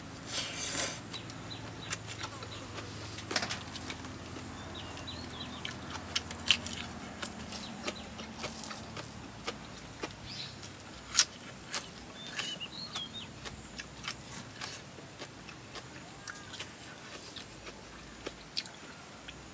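Scattered clicks and crunches of eating, with birds chirping faintly a few times over a low steady hum.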